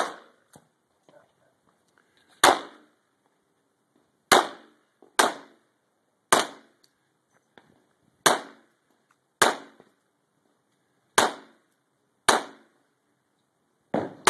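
Semi-automatic pistol shots fired one at a time, about ten in all, spaced roughly one to two seconds apart, each with a brief echo.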